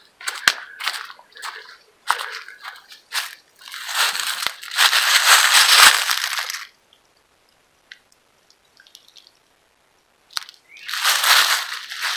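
Footsteps crunching through dry leaf litter on a shell-mound trail. They are irregular at first and densest for a couple of seconds just before halfway, then stop for a few seconds and start again near the end.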